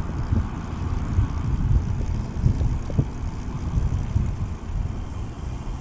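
Uneven low rumble of wind buffeting the microphone and road noise while riding a bicycle along a street with traffic, with no single passing vehicle standing out.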